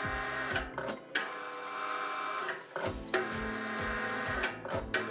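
Metal lathe running with its chuck spinning, giving a steady mechanical whine. A low thump repeats about three times a second and pauses for a moment in the middle. A few sharp clicks are heard.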